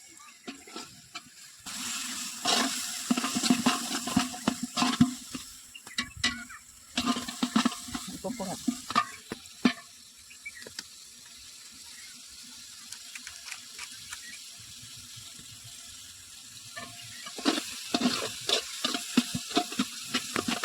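Food sizzling in a cooking pan while a spoon stirs it, with many quick knocks and scrapes of the spoon against the pan. The clatter eases off for several seconds in the middle, leaving a steady sizzle, then picks up again near the end.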